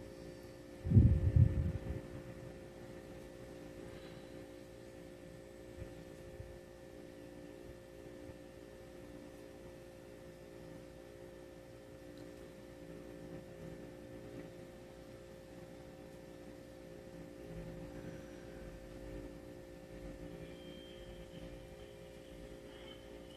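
A steady low hum with several constant tones over quiet room tone. About a second in there is a brief, loud, low thump.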